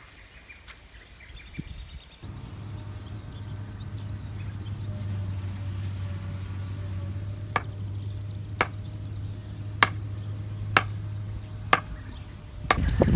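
A steady low hum that comes in about two seconds in, and in the second half a run of sharp knocks roughly once a second, about seven in all.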